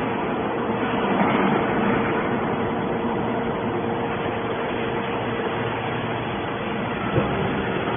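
Hydraulic scrap metal baler running: steady machine noise with a steady hum, and a single sharp knock about seven seconds in.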